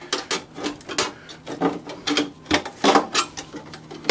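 A Cisco server blade's metal casing being handled and opened: a quick run of irregular clicks, scrapes and knocks.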